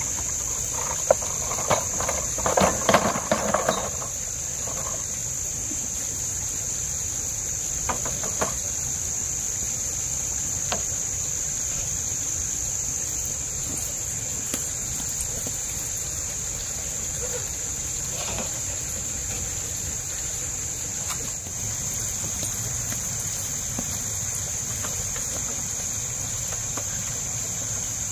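Steady high-pitched drone of insects, with a short run of clinks and knocks about one to four seconds in, like a porcelain tea set being put down on bamboo slats.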